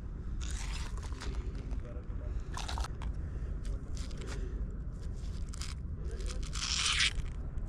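Scraping and crunching handling noises as a gloved hand moves a caught remora about on rough rock, in short bursts, the loudest near the end, over a steady low rumble.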